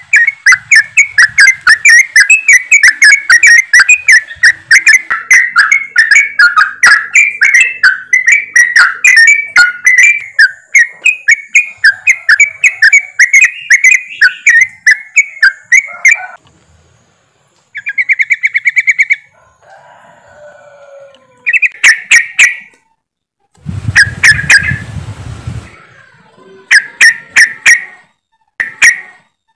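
Yellow-vented bulbuls (trucukan) chattering: a dense, rapid run of sharp bubbling notes for about sixteen seconds, then shorter separate bursts with gaps between them. A brief noisy rustle comes about three quarters of the way through.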